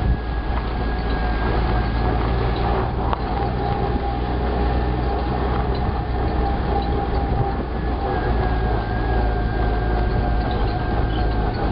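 Cushman utility vehicle driving along, its engine running steadily with a constant whine over a low drone.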